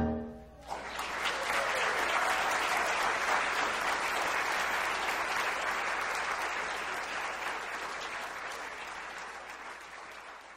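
The last held chord of the song stops, and about a second in an audience breaks into steady applause, which slowly fades toward the end.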